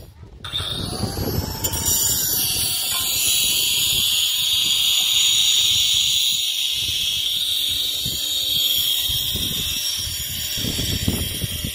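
Outdoor ambience on a handheld phone microphone: uneven low wind rumble buffeting the mic, with a steady high-pitched hiss above it.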